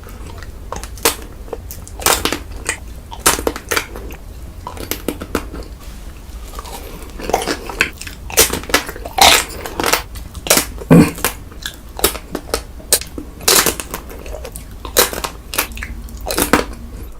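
Close-miked eating: a person biting and chewing crunchy food, with many crisp, irregular crunches over a steady low hum.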